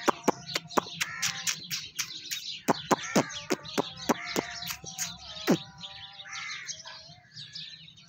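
Many birds chirping and calling together: a quick run of short, sharp chirps through the first five and a half seconds, with longer arched calls mixed in throughout.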